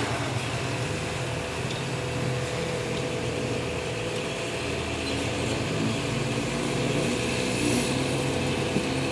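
Caterpillar 320D hydraulic excavator's diesel engine running steadily, an even low drone that hardly changes in level.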